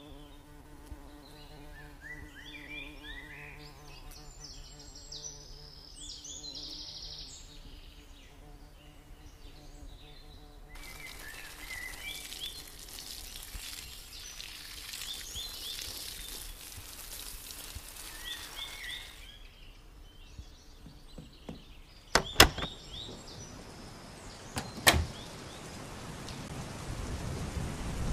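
Garden ambience: small birds chirping over a low buzzing insect. From about 11 s a watering can pours in a steady hiss for several seconds. Two sharp knocks come later, and rain starts rising in near the end.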